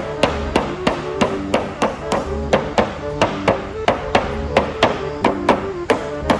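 Background music with a steady, sharp percussive beat, about three beats a second, over a simple melody.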